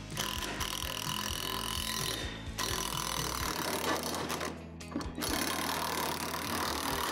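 Cordless power driver running on a bolt, tightening it through the basketball system's extension arm and backboard bracket, in two long runs with a short pause a little after four and a half seconds.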